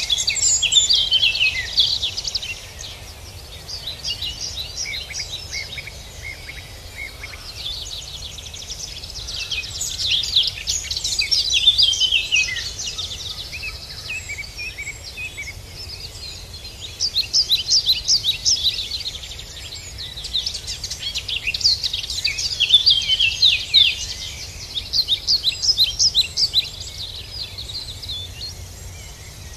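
Songbirds singing in a busy spring chorus: runs of fast high trills and chirps come and go, over a faint low steady rumble.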